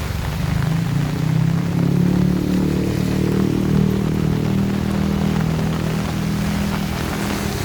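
Heavy rain falling steadily, with a low engine hum that builds about a second in and holds.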